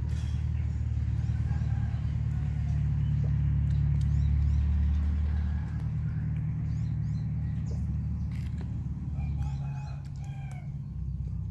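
A steady low rumble throughout, with a rooster crowing faintly in the background near the end and small birds chirping.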